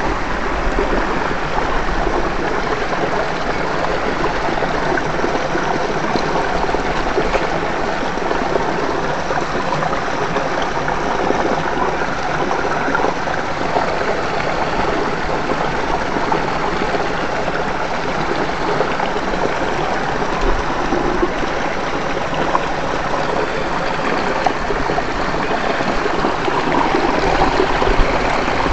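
Shallow rocky stream running steadily, water rushing and trickling over stones and small cascades close by.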